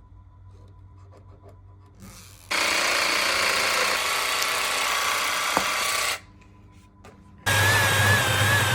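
A Makita power tool running on wood for about three and a half seconds, stopping, then starting again a second or so later with a wavering motor whine.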